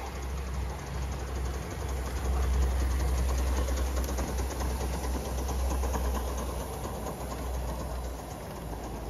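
Aster live-steam model LNER B1 locomotive with its coaches running past close by, its rapid exhaust beats and wheels rumbling on the track. It is loudest as it passes about halfway through, then fades as it draws away. It is running on new pistons with O-rings.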